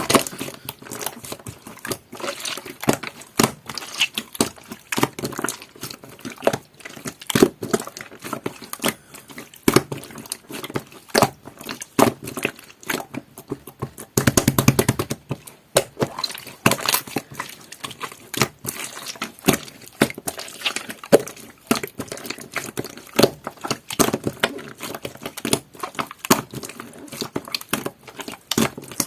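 Clear, jelly-textured slime being squished, pressed and stretched by hand, making irregular wet clicks, pops and squelches.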